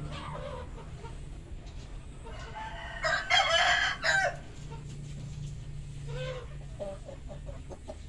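Village-chicken rooster crowing once, about three seconds in, followed by a few short clucks near the end.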